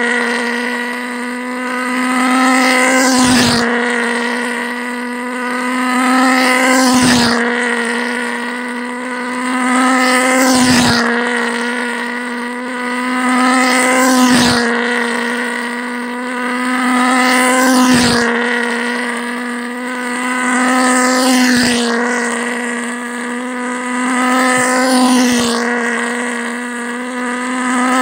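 Hz-tuned pulse jet engine with a 1-inch combustion chamber, driving a tether car around its circle: a steady, unbroken buzz on one fixed pitch with many overtones. The sound swells and fades about every three and a half seconds as the car passes by on each lap.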